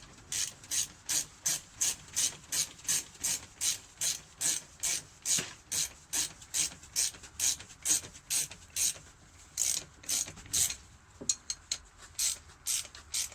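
Socket ratchet clicking in a steady run of strokes, about three a second, as a 19 mm nut is run down onto a motorcycle front fork; the strokes turn uneven near the end.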